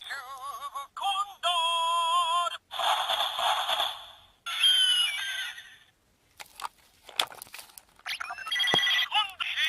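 Electronic sound effects played through the small speaker of a Zyuoh Changer Final toy: several bursts of warbling, wavering electronic tones and hissing noise, with a few sharp plastic clicks in a pause about two-thirds in.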